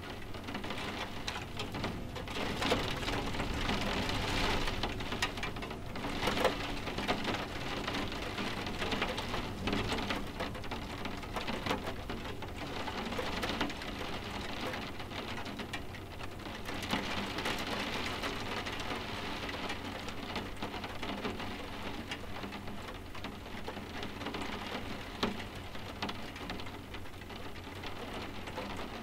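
Soft steady rain, many small drops tapping on window glass, swelling and easing a couple of times.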